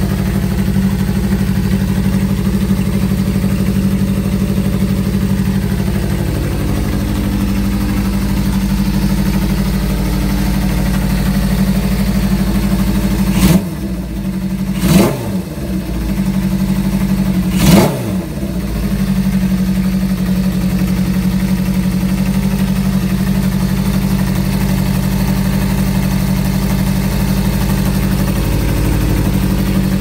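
Honda CB550's air-cooled inline-four idling steadily through an aftermarket Moto GP Werks exhaust. About halfway through, the throttle is blipped three times over about four seconds, each rev rising sharply and dropping straight back to idle.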